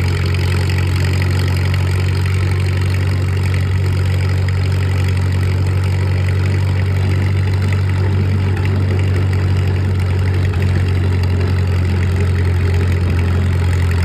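Minneapolis-Moline G tractor's big four-cylinder gasoline engine running steadily while the tractor drives along a road, heard from the driver's seat behind the exhaust stack.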